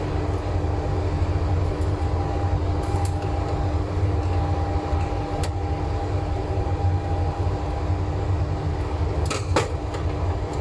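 Steady low machine hum with two faint steady tones, broken by a few small clicks and knocks from handling on the bench, including a quick pair near the end.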